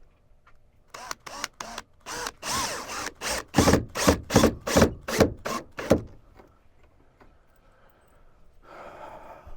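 Power drill driving a screw into wood, run in a string of short trigger pulses, with one longer spin between them, for about five seconds. A fainter rustle near the end.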